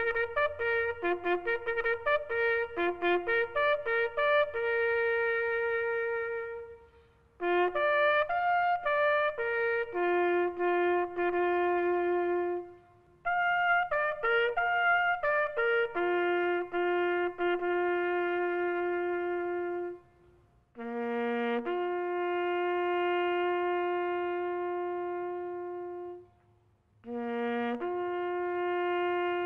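Bugle sounding a slow military call. It starts with a run of short notes, then settles into long held notes, with brief breaks about every four to six seconds.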